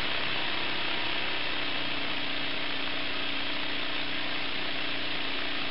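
Small home-made wobbler (oscillating-cylinder) engine running steadily, with a constant hiss and a steady hum that settles in about a second and a half in.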